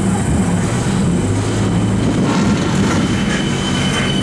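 Alstom X'trapolis 100 electric train moving slowly along a station platform: a steady low hum from the train with a thin high-pitched whine running over it.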